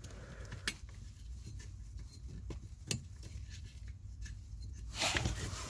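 A few sharp clicks and taps of a screw and parts being handled while fitting a blower motor housing, over a low steady hum, with a louder scraping rustle near the end.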